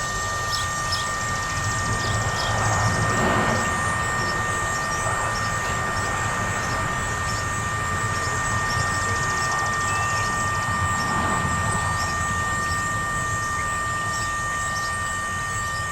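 Whelen WPS-3016 electronic tornado siren stuck giving out a steady buzz of two unchanging high tones instead of its test signal: the siren is malfunctioning, which the uploader guesses is because it could not rotate to its set position.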